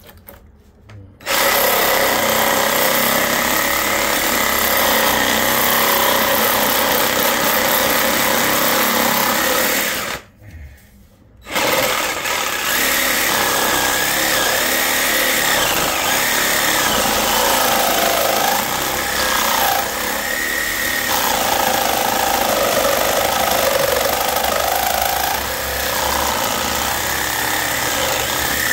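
Reciprocating saw (Sawzall) cutting into a transformer's copper windings, in two long runs with a short stop about ten seconds in.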